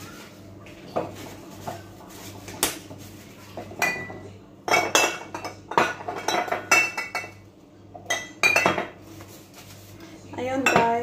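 Kitchenware clattering and clinking: metal utensils and dishes knocking against pots and plates in quick uneven runs, with short ringing tones after some strikes. The clatter is busiest in the middle and again near the end, over a faint steady low hum.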